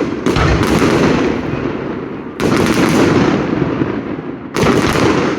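Fireworks exploding: four loud bangs, two in quick succession at the start, then one about every two seconds. Each bang trails off slowly over a couple of seconds.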